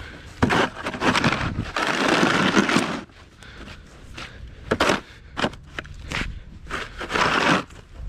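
Plastic snow shovel scraping and pushing snow across pavement, in a long scrape through the first three seconds and another near the end, with a few short knocks and crunches of snow in between.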